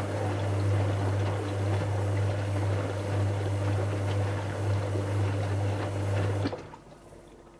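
Dyson Contrarotator CR01 washing machine mid-cycle: a steady low hum with rushing water, cutting off suddenly about six and a half seconds in.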